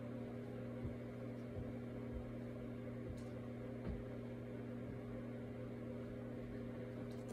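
A steady electrical hum from an appliance or mains, with a few faint soft knocks now and then.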